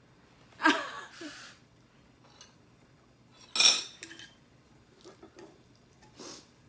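Utensils clinking against dishes, with two sharp clinks, under a second in and about three and a half seconds in, and a softer knock near the end.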